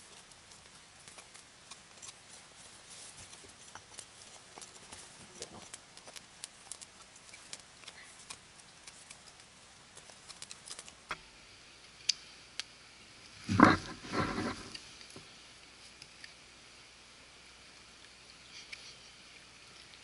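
Knife blade shaving a piece of wood: a run of light scraping clicks through the first half. About two-thirds of the way in, a person gives a short, loud vocal sound in two quick parts.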